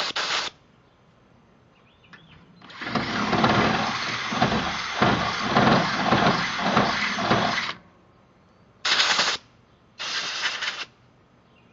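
Chicago Electric 1/2-inch corded drill with a high-speed-steel step bit cutting through steel angle for about five seconds, with a compressed-air blow gun hissing on the bit the whole time to cool it. Short blasts from the air gun alone come at the very start and twice near the end.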